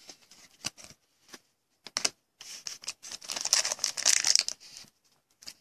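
A few light clicks of handling, then the foil wrapper of a Topps Tribute baseball card pack crinkling in the hands for about two and a half seconds, starting about two and a half seconds in.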